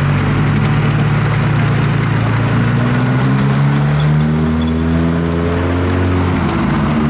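Replica Tiger I tank's engine running as it drives across grass. The engine note rises through the middle and dips briefly near the end.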